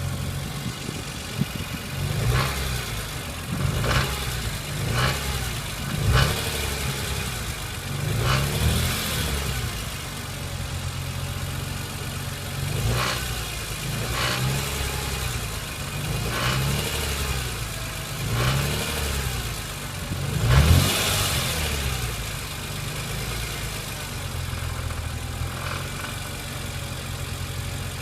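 Car engine idling, revved about nine times in short blips, the biggest about three-quarters of the way through. A rattle comes in with the revs.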